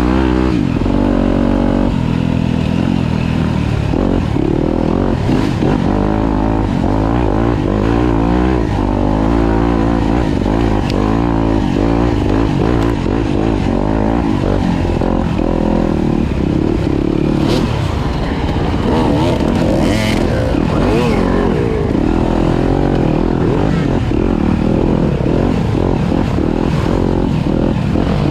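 Off-road dirt bike engine revving up and down continuously as it is ridden hard, with a few short clattering knocks in the second half.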